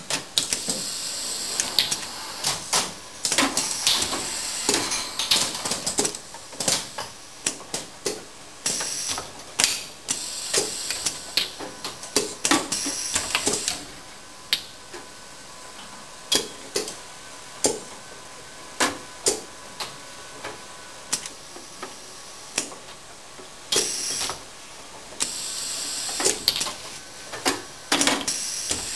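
Automated belt-conveyor production line running: workpiece carriers clatter along the conveyor and knock against stops, with many sharp mechanical clicks. Short hisses of air come and go over a faint steady motor hum.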